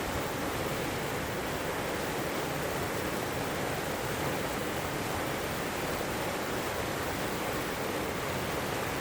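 River water flowing steadily over rocks, an even rushing sound with no breaks or changes.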